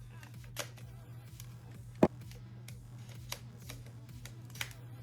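Plastic clicks and knocks from handling the hair styler's attachments as a curling barrel is fitted, with one sharp, loud click about two seconds in.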